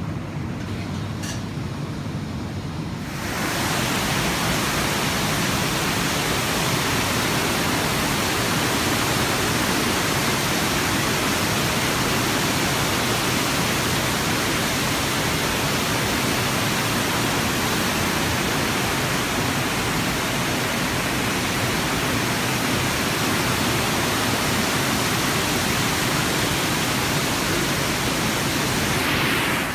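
Loud, steady rush of a river's white water pouring over rocky falls, taking over about three seconds in. Before it comes a quieter, low steady hum of a glassblowing workshop.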